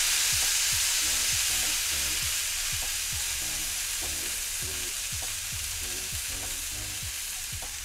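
Thin beef burger patties sizzling on a hot flat-top griddle while being pressed down to build a crust. The sizzle flares up at the start, then eases off slowly.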